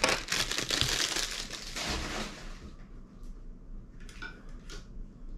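Plastic packaging crinkling and crackling as it is handled for about two and a half seconds, then a few faint rustles and clicks.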